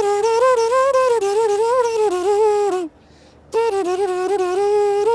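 A man humming a wordless melody that moves in steps and small slides, breaking off briefly about three seconds in.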